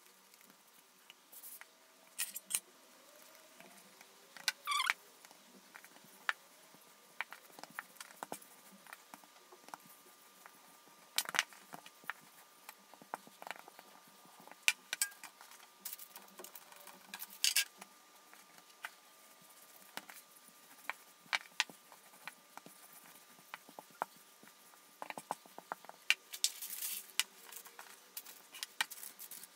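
Soft, scattered taps and knocks of a wooden rolling pin and hands working pide dough on a silicone pastry mat. Near the end there is a denser rustle of parchment paper as the rolled dough goes onto a lined baking tray.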